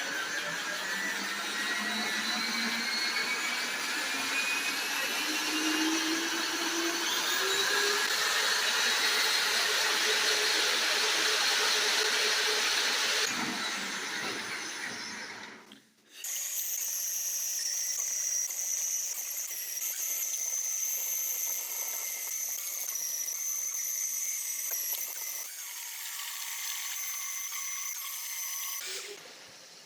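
Power tool running: a motor whine rising slowly in pitch over the first half, then cut off about 16 seconds in, followed by a steadier high-pitched tool whine.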